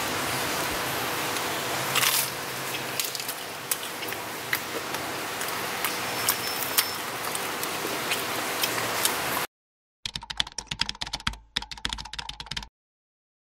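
The crunchy panko crust of a fried breadfruit piece crackling as it is handled and broken apart by hand: small sharp cracks over a steady hiss. After a sudden cutoff, a short run of rapid clicking follows near the end.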